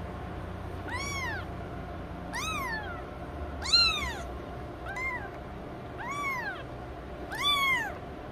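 A very young kitten mewing loudly: six high-pitched cries in a row, each rising and then falling in pitch, about one every second and a half.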